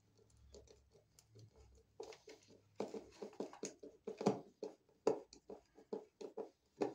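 Irregular clicks, knocks and scrapes of hands handling an electrical box and a screwdriver against wooden wall boards, sparse at first and then several a second from about two seconds in, with a few louder knocks.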